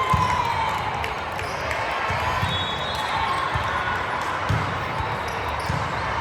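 Volleyball gym sound: balls thumping on the court floor at irregular intervals over steady background chatter from the crowd and players.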